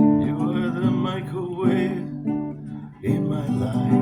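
Acoustic guitar strumming chords in a song intro, with a short wordless vocal line wavering over it for the first two seconds.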